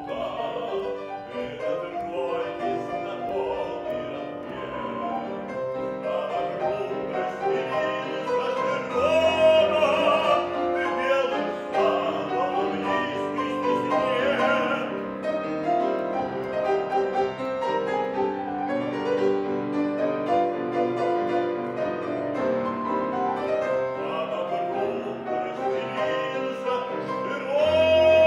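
A male classical singer sings in operatic style with grand piano accompaniment, his long held notes wavering with vibrato. The singing swells louder near the end.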